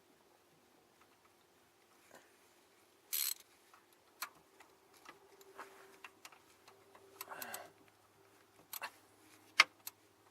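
Scattered metal clicks and clinks of hand tools and parts while a starter is fitted, with a short rattle about three seconds in, a longer scraping rattle around seven seconds, and a sharp click near the end. A faint steady hum sits underneath.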